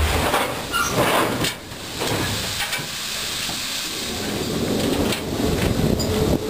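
Steam locomotive hissing steadily as the train rolls slowly, with a low rumble building under it about two-thirds of the way through.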